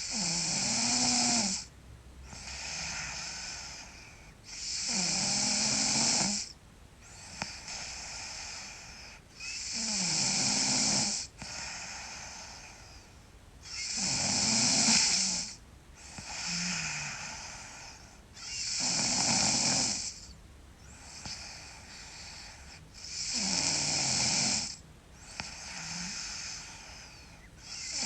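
A sleeping girl snoring loudly, about six snores roughly four to five seconds apart, each followed by a softer breath.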